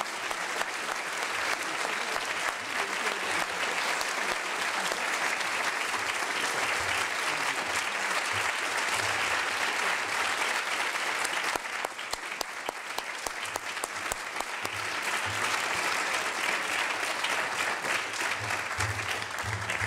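Audience applauding steadily, with a slight lull about halfway through before it picks up again.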